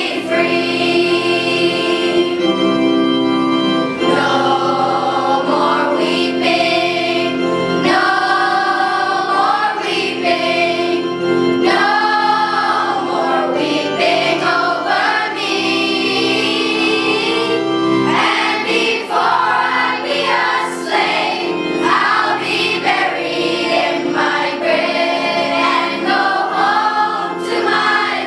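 A choir singing a slow gospel-style song over held organ chords.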